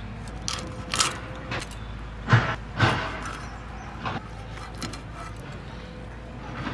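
Fish being scaled and cut on a boti, the curved blade standing upright on its wooden base: short scraping strokes and knocks, the two loudest about two and a half seconds in, half a second apart. A steady low hum runs underneath.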